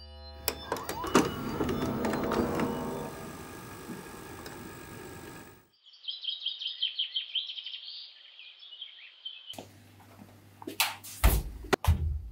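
A noisy, crackling swell of sound effect for the first five seconds, then a few seconds of rapid high birdsong chirping, then low room hum with knocks and two loud heavy thuds about a second before the end.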